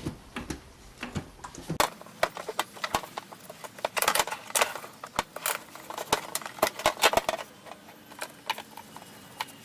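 Irregular plastic clicks, knocks and light rattles of hands working a BMW E90's screen wash tank and its wiring back into place in the wheel arch. The clicks come thicker from about two seconds in.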